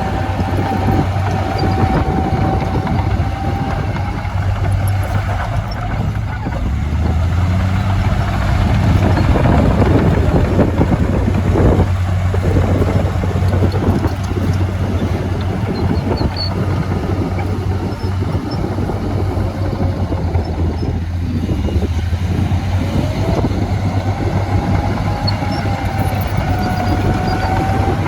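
Diesel engine of heavy earthmoving machinery running steadily under work, with a faint wavering whine near the start and again near the end.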